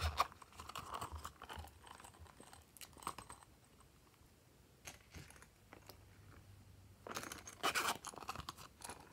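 Crackly handling noise as silicone pop-it pouches are handled and tipped out, with small polymer-clay slices rattling onto slime. It comes in two busy spells: one at the start lasting about three seconds, and another about seven seconds in, with a few scattered ticks between.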